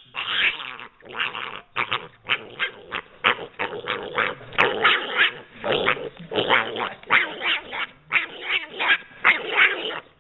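Small pet pig calling repeatedly while held up: a long run of short, harsh grunts and squeals, two or three a second.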